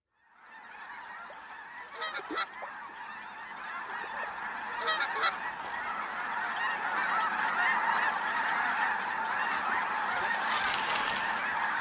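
A large flock of snow geese calling together: a dense chorus of honking that fades in and grows louder, with a few nearer, sharper calls standing out about two seconds in and again about five seconds in.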